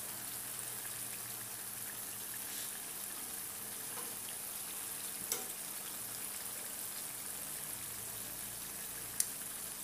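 Freshly cooked sambal chili sizzling faintly and steadily, still hot, with two small clicks, about halfway through and near the end.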